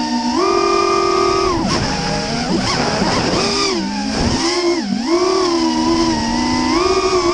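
FPV quadcopter's Emax Red Bottom brushless motors and DAL propellers whining. The pitch steps up and down with the throttle, and there is a rougher, warbling stretch through the middle where it dips sharply a few times.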